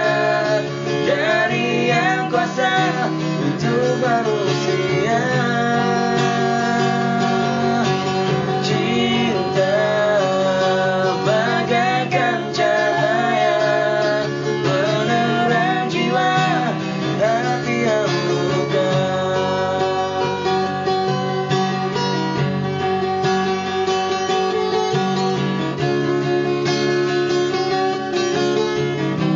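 Acoustic guitar strummed, with a solo singing voice over it for roughly the first two-thirds; after that the guitar carries on alone.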